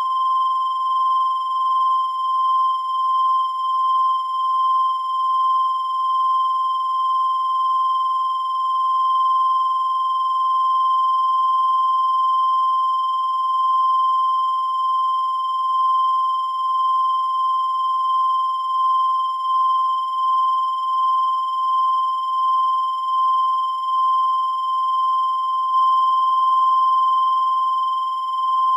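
Continuous high-pitched electronic tone, one steady pitch held without a break, its loudness wavering slightly.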